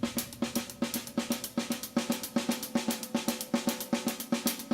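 Drum kit played with sticks: the Swiss Army triplet rudiment (right flam, right tap, left tap) worked into a swinging 6/8 groove on snare and cymbals, a steady run of strokes with regular accents.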